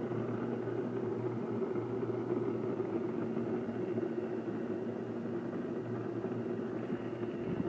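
Countertop blender running steadily, its motor whirring as it purées cherries and ginger into juice.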